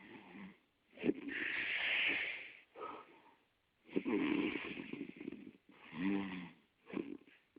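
Snoring: a run of noisy breaths a second or two apart, one of them carrying a buzzing pitched tone about six seconds in.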